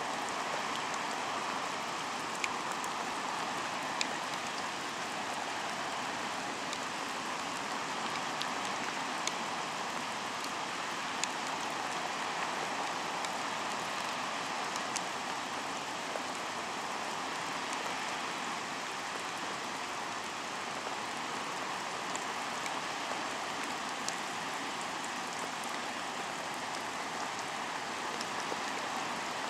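Waterfall pouring: a steady, even rush of falling water, with a few brief sharp ticks scattered through it.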